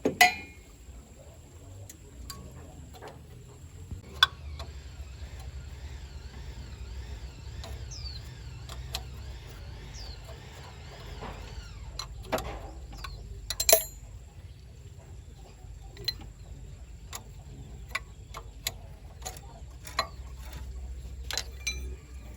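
Irregular clicks and knocks of hand work on the truck, with two louder strikes, one just after the start and one about two-thirds through, over a steady low hum.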